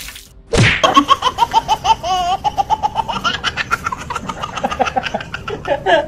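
Comedic laughter sound effect: a short swoosh, then a long, high-pitched rapid cackle of many quick 'ha' pulses, about seven a second.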